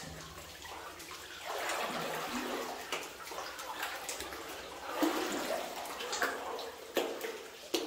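Water sloshing and lapping as a person wades chest-deep through a flooded mine tunnel, with a few sharper splashes in the second half.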